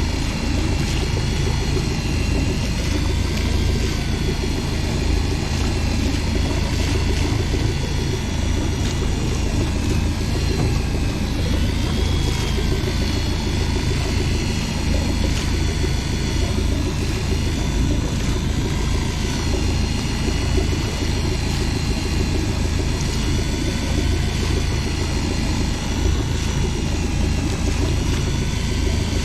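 Boat engine running steadily: a constant low rumble with faint wavering higher tones above it.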